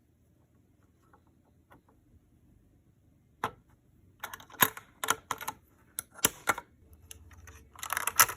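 Sharp metal clicks and clatter of a CPU socket's load plate and retention lever being handled during an Intel LGA CPU installation. After a quiet start there is a single click, then a run of clicks, then a dense cluster of clicks near the end.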